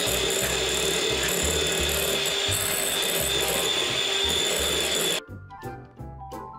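Electric hand mixer running steadily at speed, beating egg whites in a glass bowl for meringue. It cuts off abruptly about five seconds in, and music follows.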